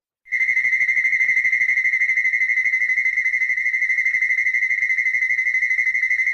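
King Ghidorah (1964) sound effect: a high-pitched electronic trilling cry that cuts in suddenly and holds one steady pitch, fluttering rapidly.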